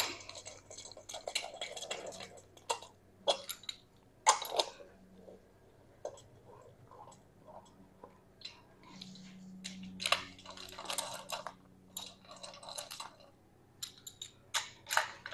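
Hand socket ratchet clicking in short runs, with scattered light metal taps, as the intake manifold bolts are snugged down.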